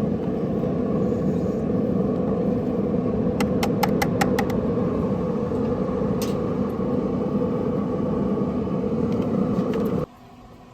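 Gas burner running with a steady roar and hum under a boiling sauce pot, with a quick run of light clicks about four seconds in. The roar cuts off suddenly near the end as the burner is shut off.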